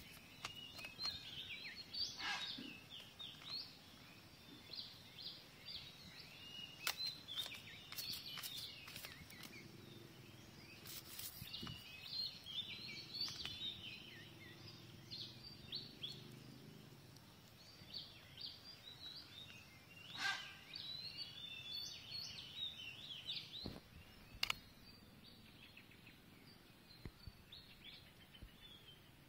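Small birds chirping in the background, many short high calls overlapping, thinning out over the last few seconds, with a few faint clicks.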